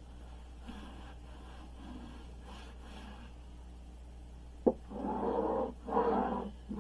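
Vinyl amp covering (tolex) being rubbed and pressed down by hand onto a wooden amp cabinet: a sharp tap about two thirds in, then a few rough rubbing strokes, each under a second.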